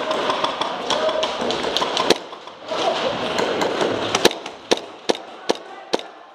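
Airsoft gunfire: one sharp snap about a third of the way in, then a run of five evenly spaced snaps, a little over two a second, in the second half. A rustling haze of gear noise fills the first half and drops away midway.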